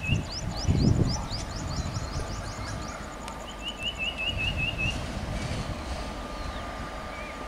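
Birds calling: a quick run of about six short falling notes, heard twice, with a rapid string of high chirps in between. Under the birds is a low rumble from the approaching electric locomotive and its passenger train, loudest in the first second.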